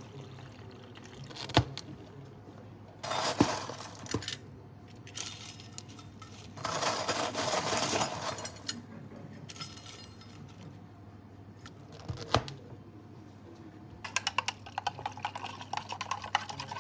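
Bubble tea being made: plastic cups knocking down on a scale and being handled, with a rustling scatter of crunchy topping pieces about halfway through and a quick run of small clinks and taps near the end. A low steady hum sits underneath.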